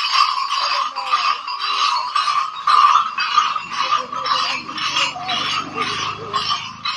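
Cluster of brass bells hanging from a kanwar pole, jangling in a steady rhythm of about three shakes a second as the pole swings with the carrier's walking. The bells give a continuous ringing.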